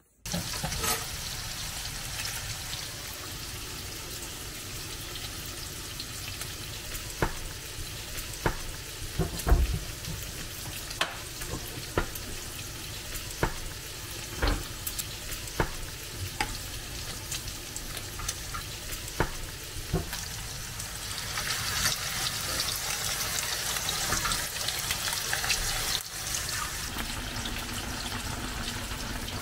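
A wooden spatula stirring a stainless-steel pot of fish cake soup on a gas stove, knocking against the pot a dozen or so times, over a steady hiss of food cooking. The hiss grows louder in the last several seconds.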